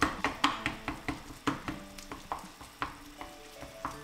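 Wooden spatula mashing kabocha squash in a bowl: quick repeated knocks and squishes, about five a second at first, slowing and getting fainter toward the end.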